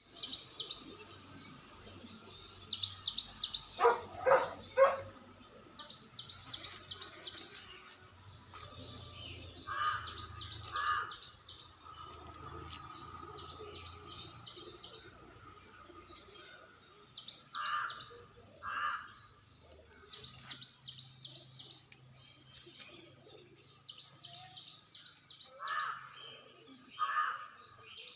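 Small birds chirping: one repeats a quick burst of high notes every couple of seconds, while lower double calls from another bird come in now and then.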